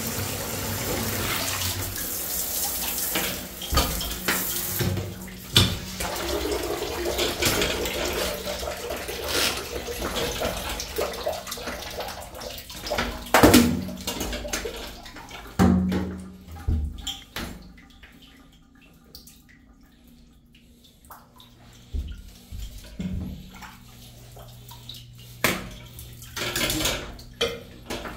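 Handheld shower sprayer spraying water into a bathtub of standing, backed-up dirty water: a steady rush of splashing. About halfway through the spraying dies down and a few clunks and knocks follow.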